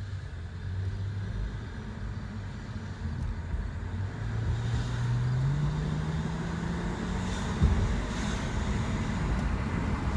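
2008 Acura TL's 3.2-litre V6 running with a low whine that climbs in pitch a few seconds in as engine speed rises. The whine comes from the left side of the engine and its cause is unknown, even after a new alternator, serpentine belt and power-steering O-rings. A single thump comes near the end.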